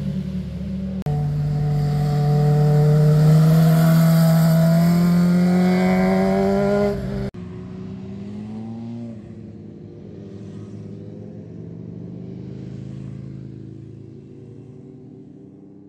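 Motorcycle engine accelerating through a bend, its pitch rising steadily and loudly for about six seconds, then cut off abruptly. A quieter engine drone carries on after the cut and fades out near the end.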